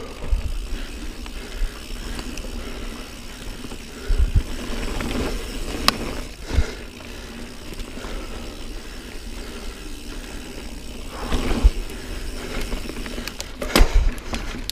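Niner Jet 9 RDO mountain bike rolling along dirt singletrack: a continuous tyre-on-dirt rumble and rattle, with sharp knocks a few times as it goes over bumps.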